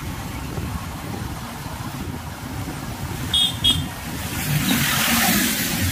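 Road vehicle running along a road with a steady low rumble, two quick high-pitched horn beeps about three and a half seconds in, and a rising hiss of noise near the end.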